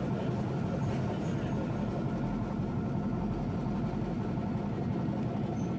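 Vintage electric tram running along the street, heard from inside the car: a steady low rumble of the motor and the wheels on the rails.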